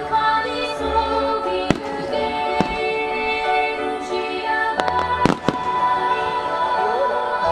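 Aerial firework shells bursting in a starmine display: several sharp bangs, three of them close together a little past the middle, over loud music.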